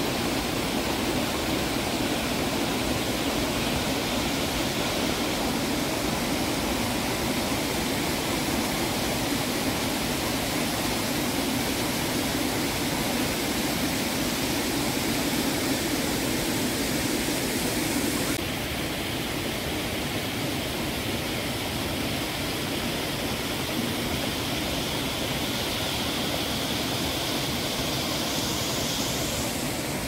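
Waterfall: a steady, loud rush of falling water, which shifts slightly and drops a little in level about eighteen seconds in.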